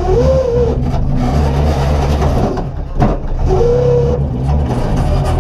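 Volvo 240 rally car's engine running under load on a stage. A short whistle rises and falls near the start and again past the middle, and there is one sharp knock about three seconds in.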